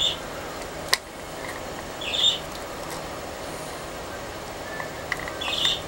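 A screwdriver prying open the snap-latched plastic case of a small 12 V battery charger: one sharp click about a second in, with brief plastic scraping around two seconds in and again near the end, over a steady low hiss.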